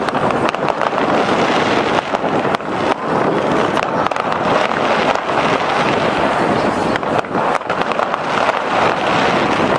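Fireworks going off: many sharp cracks and bangs in close succession over a steady wash of noise.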